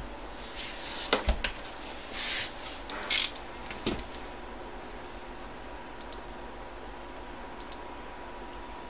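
Cardboard shipping carton being opened and handled: a few knocks and short scraping rustles of cardboard in the first few seconds. Then a quieter stretch with a few faint clicks.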